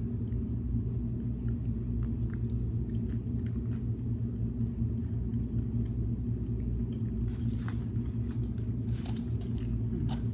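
Steady low rumble, with crackling and clicking from handling food and takeout packaging from about seven seconds in.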